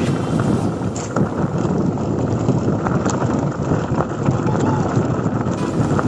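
A mountain bike rolling fast over a dirt trail: a steady rumble and rattle of tyres and frame, with wind buffeting the microphone and scattered short clicks and knocks.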